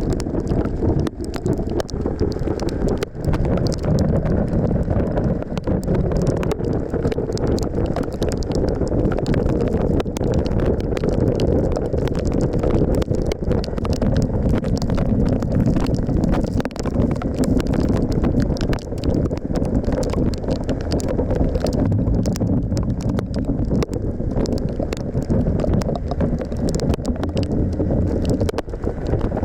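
Suzuki V-Strom 1050XT's V-twin engine running while riding, under a steady rush of wind on the microphone, with many short ticks throughout.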